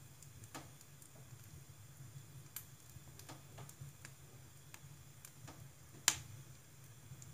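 Logs burning in a wood stove's firebox, crackling with scattered sharp pops at irregular intervals, one much louder pop about six seconds in, over a low steady hum.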